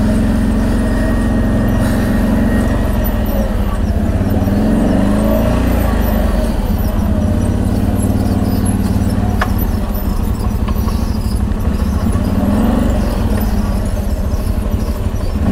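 CFMoto X8 ATV engine running steadily on a descent, its pitch rising and falling a few times with the throttle. A single sharp click about nine seconds in.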